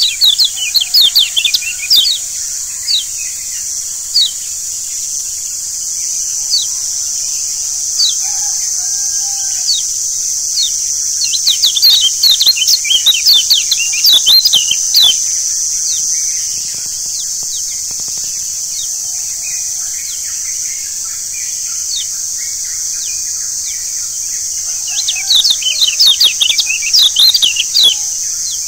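Yellow white-eye (kecial kuning) chirping: quick, high, downward-sliding chirps in rapid clusters, densest near the start, around the middle and near the end, over a steady high hiss.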